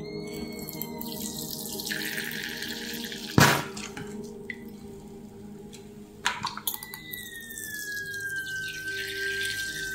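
Liquid activator squirted from a plastic squeeze bottle into a measuring spoon, splashing and dripping into the bowl below, in two pours. Each pour carries a thin tone sliding slowly down in pitch. A sharp knock comes between them.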